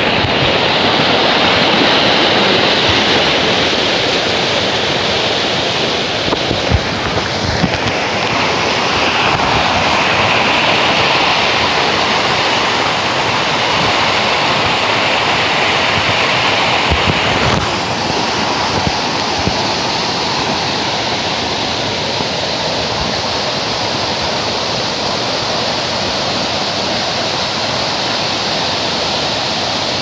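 Forest waterfall cascading over rock ledges into a pool: a loud, steady rush of falling water, with a few brief knocks partway through.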